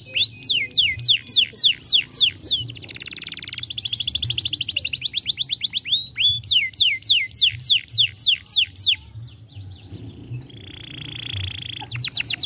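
Canary singing: series of loud falling whistled notes, about four a second, twice giving way to a fast rolled trill.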